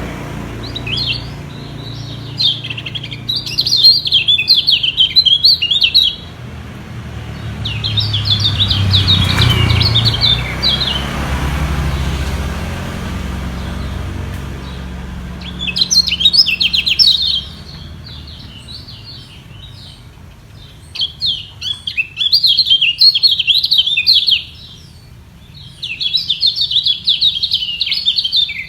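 Kecial kuning, small white-eye songbirds, singing in rapid chattering bouts of a few seconds each with short pauses between, as rival birds sing against each other. A low rumble runs under the first half and fades about halfway through.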